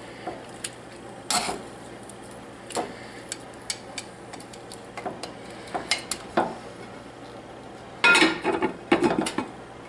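Metal tongs clicking and scraping against a nonstick skillet as pork chops are turned in pan gravy, in scattered light clinks. About eight seconds in, a glass lid clatters down onto the pan, the loudest sound.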